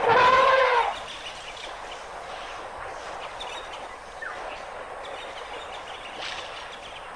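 An African elephant trumpets once: a loud, brassy call just under a second long, arching slightly in pitch. A faint background hiss follows.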